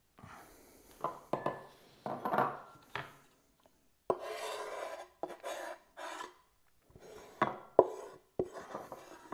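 Knife scraping grated lime zest off a wooden chopping board into a bowl, in short rasping scrapes with several sharp knocks of the board and knife.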